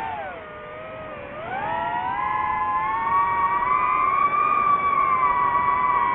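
DJI FPV drone's motors and propellers whining. The pitch sinks low in the first second or so as the motors slow, climbs back up about two seconds in, and holds steady as the drone flies on at high throttle.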